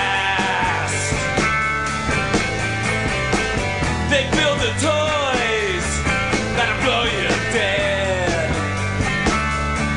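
Rock song in an instrumental passage: a lead electric guitar plays notes that bend and slide downward over bass and steady drums, with no singing.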